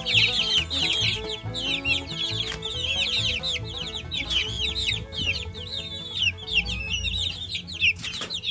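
A brood of baby chicks peeping non-stop, many short, high, falling chirps overlapping one another. Background music with a low beat plays under them.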